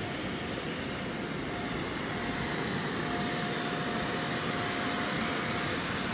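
Electric inflation blower running, a steady rushing whir with a faint thin whine on top.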